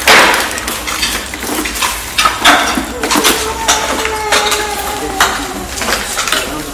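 Clattering and clinking of broken tile and debris on a hard floor, sharp knocks throughout. Partway through comes a long, thin cry from a person.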